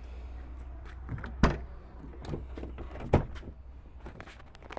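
Pickup truck door being opened: a sharp latch click, a second one about a second and a half later, and smaller clicks and knocks of handling around them.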